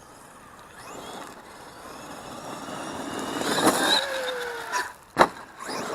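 Traxxas X-Maxx electric RC monster truck driving, its motor whine and tyre noise building over a few seconds, then fading with a falling pitch. A single sharp knock about five seconds in.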